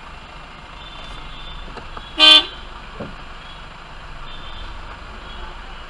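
A single short car-horn toot about two seconds in, loud over a steady background hum.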